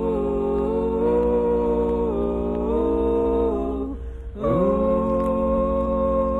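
Music with long held notes sung in close harmony, stepping to new pitches every second or so. The sound breaks off briefly about four seconds in, then a new note slides up into place.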